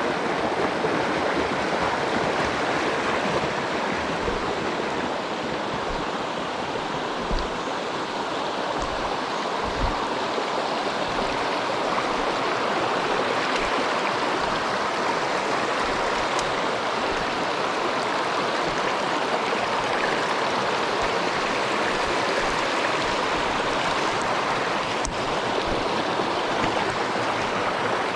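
Mountain stream rushing over rocks, a steady, unbroken wash of flowing water, with a couple of soft low thumps about a third of the way in.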